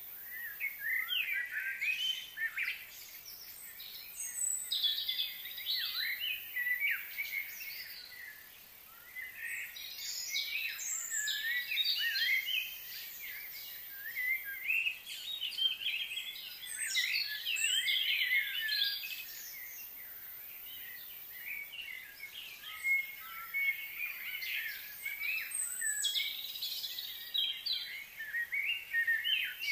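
Several small birds chirping and calling in quick, twittering spells, with short pauses between them.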